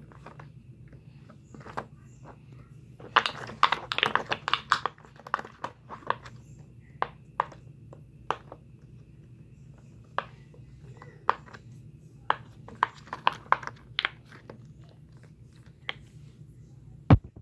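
Silicone pop-it fidget toy being pressed with the fingers, its bubbles popping with sharp clicks. There is a rapid flurry of pops about three seconds in, then single pops every half second to a second, and one louder knock near the end.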